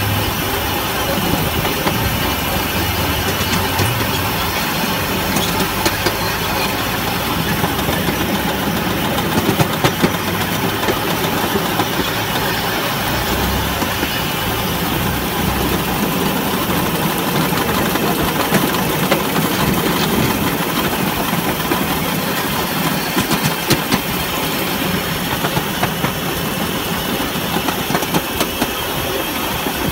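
7¼-inch gauge miniature railway train running along the track: a steady rumbling run with scattered small clicks from the wheels on the rails, and a low hum that comes and goes.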